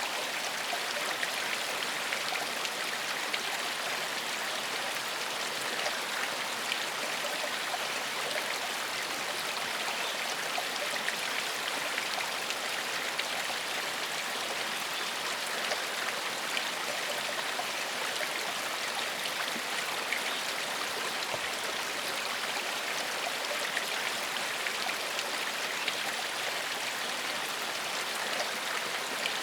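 Gentle stream of running water flowing steadily, an even rush with no breaks.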